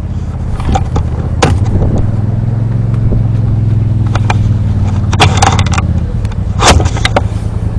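An engine running steadily at idle, with several sharp cracks scattered over it, the loudest a few seconds in and near the end.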